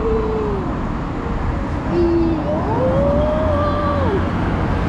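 City street traffic noise, with a few drawn-out gliding tones over it: one held just as it begins, a short lower one about two seconds in, and a longer one that rises and falls from about two and a half to four seconds.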